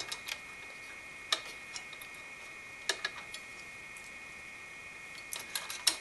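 Light metal clicks and taps from the spring clips of a Spire TME III cooler's mounting kit being pushed onto the threaded mounting bolts. The clicks come singly at first, then in a quick run near the end.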